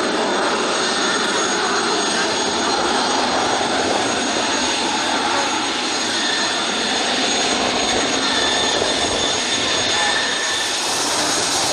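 Twin-engine business jet's turbofans at takeoff power through the takeoff roll and lift-off: steady jet noise with a high, constant whine.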